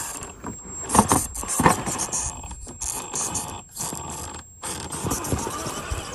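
Scale RC rock crawler working over rock: tires scrabbling and knocking on the stone, with two louder knocks about one and one-and-a-half seconds in. A thin high whine from its electric drive drops out in the middle and returns near the end.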